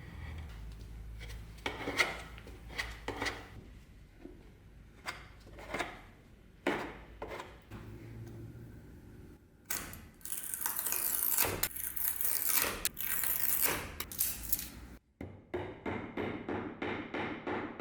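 Hand work on spinning-wheel parts: scattered clicks and knocks, then a loud stretch of hissy scraping and quick back-and-forth rubbing strokes near the end.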